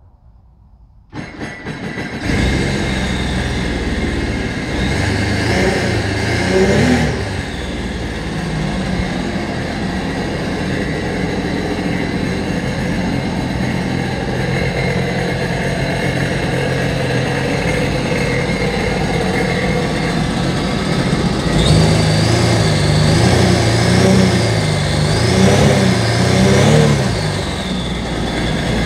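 2010 Sea-Doo GTX 215 jet ski's supercharged Rotax 4-TEC three-cylinder engine starting about a second in, then running steadily, with its revs rising and falling a few times.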